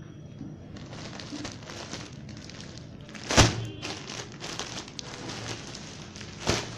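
Rustling and crinkling of clothes being handled and moved, with a sharp knock about three and a half seconds in and a smaller one near the end.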